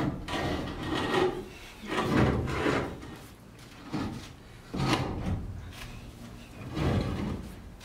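A heavy metal sea strainer being worked loose and shifted by hand. Several short scraping and knocking bursts come and go, each under a second long.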